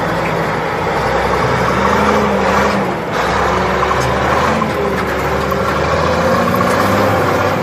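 Engine of a six-wheeled military cargo truck running under load as it climbs a steep dirt slope. It gives a steady low drone whose pitch drifts slightly.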